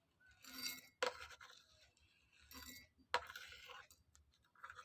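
Whole cloves being dropped into a cup, giving several separate small clinks and rattles, the sharpest about a second in and about three seconds in.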